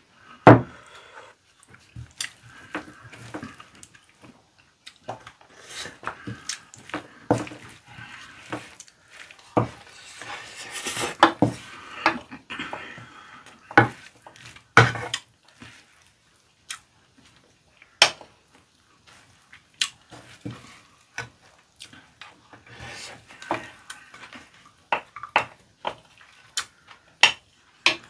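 Wooden spatula scraping kimchi fried rice out of a pan and knocking against the pan and bowl, with wooden spoons clinking on ceramic bowls: an irregular string of knocks, clicks and scrapes, busiest in the middle.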